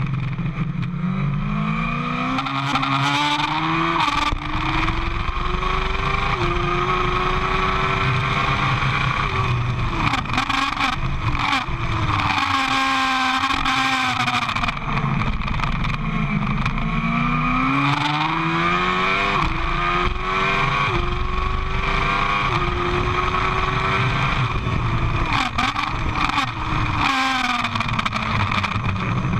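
Sport motorcycle engine heard on board at racing speed, climbing in pitch through the gears with a short break at each upshift. Twice the pitch falls away with quick downshift blips as the bike brakes for a corner, then it pulls hard again.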